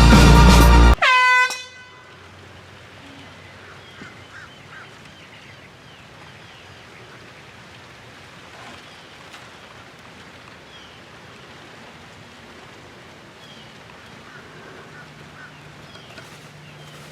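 Loud music with an air horn blast that cuts off about a second in, its pitch sagging as it dies away. After that, quiet outdoor background with a few faint short chirps.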